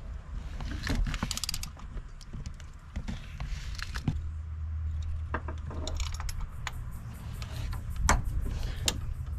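Metal tools clinking and rattling in a cramped engine bay as a socket and extension work loose a spark plug on a Subaru boxer engine, with scattered sharp clicks. A low steady hum sits underneath from about halfway.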